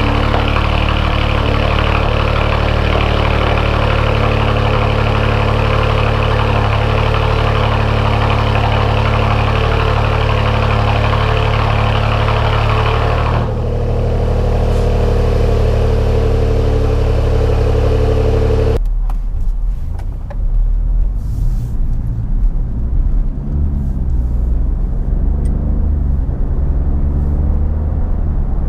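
Alfa Romeo Giulia Quadrifoglio's 2.9-litre twin-turbo V6 idling fast on a cold start through an X-pipe, its exhaust valves held open by unplugged vacuum lines; the sound is steady, a little softer in the highs from about thirteen seconds in. About nineteen seconds in it changes abruptly to the car on its stock exhaust heard from inside the cabin while driving, a lower rumble rising and falling in pitch.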